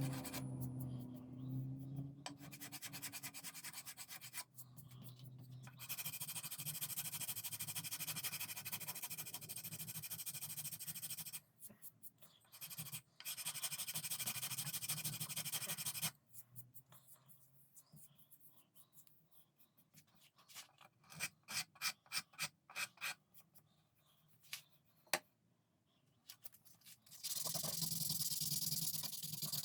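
Hand sanding on a horn inlay set into a wooden gunstock: runs of steady rubbing broken by short pauses, with a stretch of quick, short strokes in the middle.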